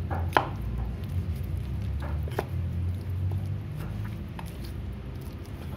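Kitchen knife cutting raw chicken thigh meat away from the bone on a wooden cutting board: a few sharp knocks and clicks of the blade, the loudest about half a second in and two more around two seconds in, over a steady low hum.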